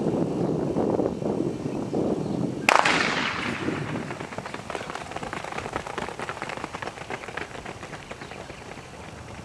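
A single sharp bang of a sprint start signal about three seconds in, followed by a patter of the runners' footsteps on the synthetic track, fading as they move away.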